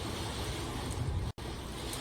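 Steady rain falling, an even hiss with a low rumble underneath, cut by a split-second dropout to silence about two-thirds of the way through.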